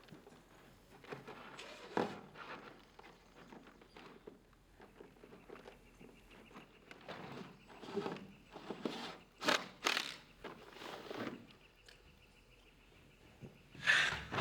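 Irregular footsteps and scattered knocks and scuffs of things being handled, with a louder clatter near the end.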